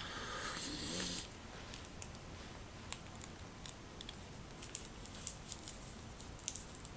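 A soft, breathy rush of air for about the first second, then faint, irregular small clicks and taps, like handling noise in a small room.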